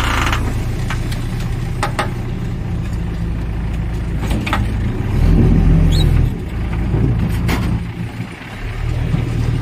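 JCB backhoe loader's diesel engine running, revving up under hydraulic load about five seconds in, easing off, and revving again near the end. A few sharp knocks and clanks come from the bucket working the spilled soil and stones.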